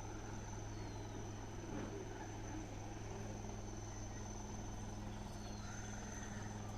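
Steady high-pitched insect trill over a constant low hum.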